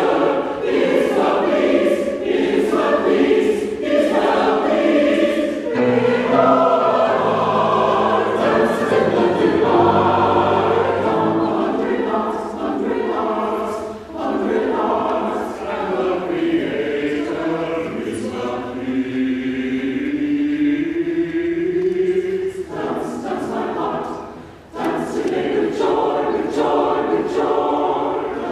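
Mixed-voice church chancel choir singing in parts, with a short break about three-quarters through before the voices come back in.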